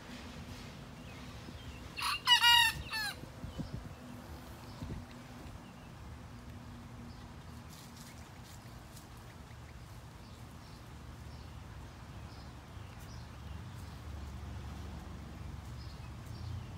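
A young cockerel crowing once about two seconds in: a short, high, wavering crow of about a second, the unfinished crow of a rooster just beginning to learn it.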